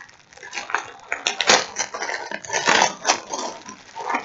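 Plastic packaging crinkling and rustling in irregular bursts as hands open and pull at a wrapped pair of new workout pants.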